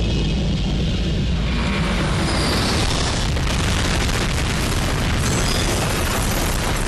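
Dramatised sound of a Boeing 747 jumbo jet crashing into a block of flats: a loud, deep rumbling roar that swells into a heavy explosion about two seconds in and keeps rumbling on.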